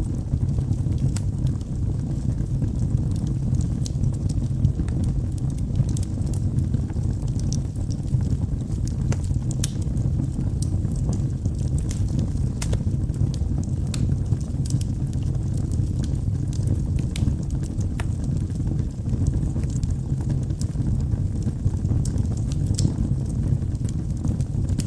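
Wood fire burning in a fireplace: a steady low roar of flames with frequent irregular crackles and pops from the burning logs.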